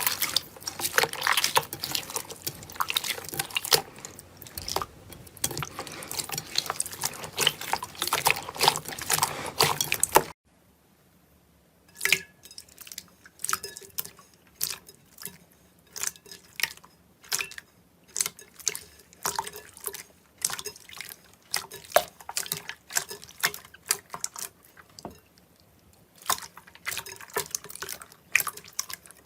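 Slime being squeezed and kneaded by hand, a dense run of wet clicks and crackles. About ten seconds in it cuts to a quieter clip of slime being poked and pressed, with sparser separate wet pops.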